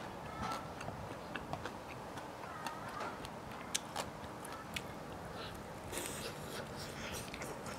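Close-miked eating sounds: scattered small clicks and crackles of a fried chicken leg being pulled apart and chewed, with a bite into the crispy skin about six seconds in.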